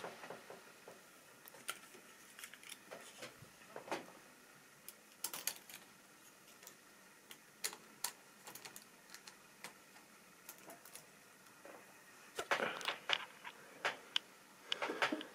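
Tri-ang or Lima OO-gauge model wagons running on the layout, their small wheels clicking and clattering irregularly over rail joints and points, with a thicker patch of clatter near the end.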